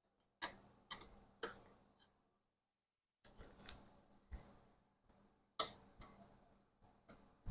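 Hand tools clicking and tapping on car seat hardware while screws are worked loose: a dozen or so sharp separate clicks, three at half-second spacing early, then a busier run with the loudest click about two thirds of the way through.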